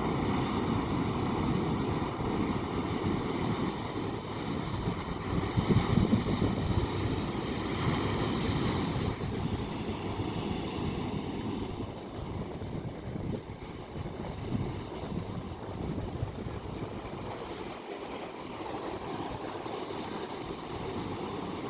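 Ocean surf: waves washing in, with a loud surge about six to nine seconds in, then a softer, steadier wash.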